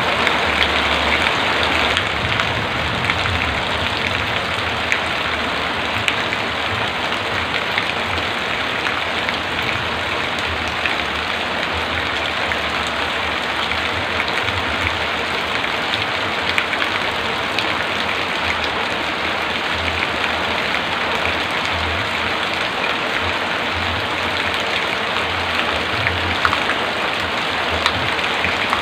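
Heavy rain falling steadily: a dense, even hiss with scattered drop ticks and no thunder.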